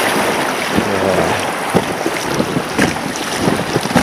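A boat with an inflatable floor moving on a river: steady rush of water and wind buffeting the microphone, with a few light knocks.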